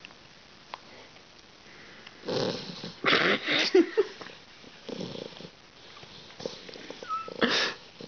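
Soft-coated wheaten terrier puppy snoring in its sleep: a few rough, noisy breaths, the loudest between about two and four seconds in, with weaker ones later.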